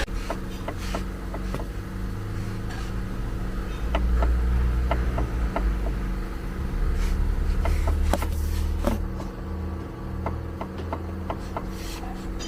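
Steady low mechanical hum with scattered light clicks and knocks, and two swells of low rumble partway through.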